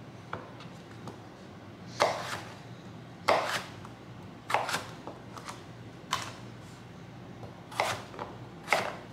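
Kitchen knife cutting through a raw, unpeeled russet potato into wedges and striking a wooden cutting board, about six separate cuts spaced a second or so apart.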